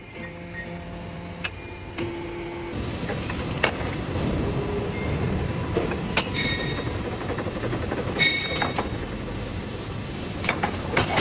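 Track-assembly machinery running with a steady rumble, broken by sharp metallic knocks and short ringing clanks of steel excavator track links and pins being fitted together.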